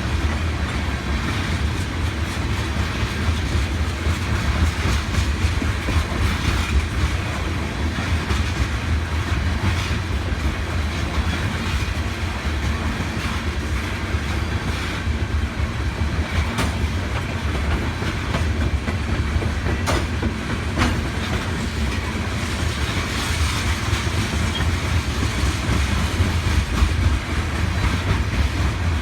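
Oil train's tank cars rolling past, a steady low rumble with frequent wheel clicks over the rail joints.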